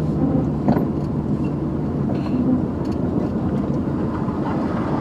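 Loaded truck driving, a steady low engine and road rumble, with a short knock about a second in.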